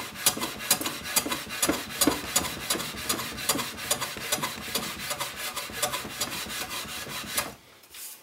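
Hand plane shaving along the edge of a wooden frame in a quick series of short strokes, a few a second, which stop near the end.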